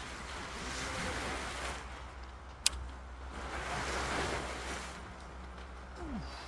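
Sea waves washing in, swelling twice, with a single sharp click a little before the middle.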